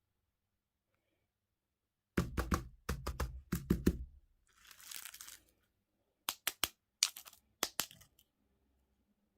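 Crunchy dessert bitten and crunched close to the microphone: a quick run of sharp cracks about two seconds in, a short rustle, then a few more separate cracks.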